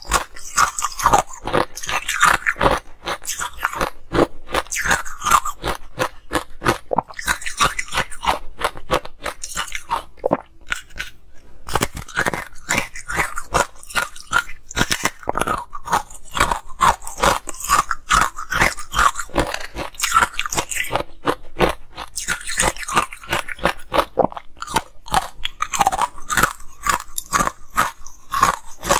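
Ice being bitten and chewed close to the microphone: a dense run of crisp, crackling crunches that comes in bouts of chewing.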